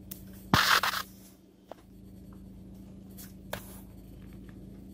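Handling noise from the phone camera being moved: a loud rustling scrape about half a second in, a faint click, then a softer rustle and tap past three seconds, over a steady low hum.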